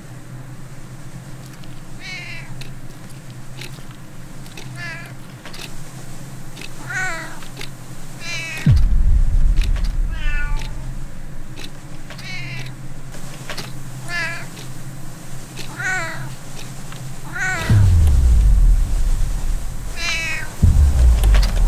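A cat meowing over and over, a wavering call every second or two. Deep low booms break in about nine seconds in and twice more near the end, louder than the meows.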